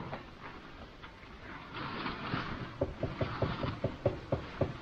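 A hammer driving a nail into a timber frame post: about ten quick blows, roughly five a second, starting nearly three seconds in, each with a short ringing note. Before the blows comes a brief rustling noise.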